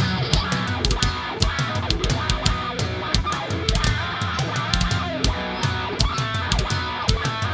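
Groove metal band playing live: the drum kit beats out a steady rhythm with cymbal hits over a riff on distorted electric guitars.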